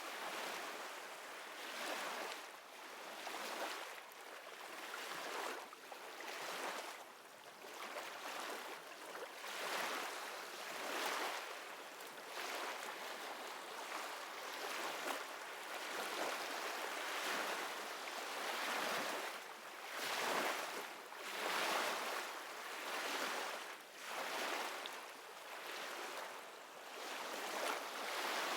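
Ocean surf: a steady rush of waves that swells and falls away every second or two.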